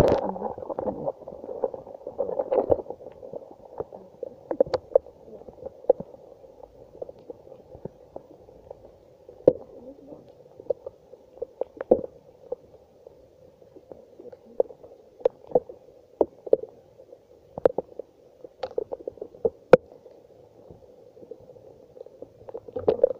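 Raindrops hitting a smartphone lying in the grass: irregular sharp ticks, several each second, over a dull steady hiss.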